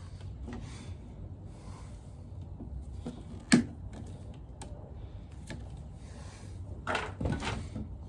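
Small handling noises of cable conductors and a hand tool at a plastic ceiling rose: faint rustling, one sharp click about three and a half seconds in, and a few more clicks near the end.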